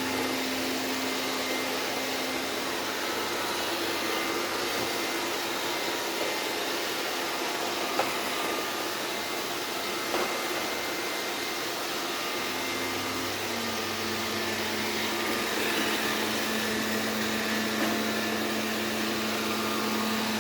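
Vacuum cleaner running steadily, its motor hum stepping slightly lower in pitch about two-thirds of the way through, with a couple of brief knocks.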